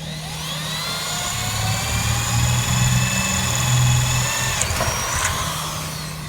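Power drill with a Milwaukee bit drilling a hole: the motor whine rises as it spins up, holds steady while the bit cuts with a heavy rumble under it, then stops abruptly, with a brief second burst just after.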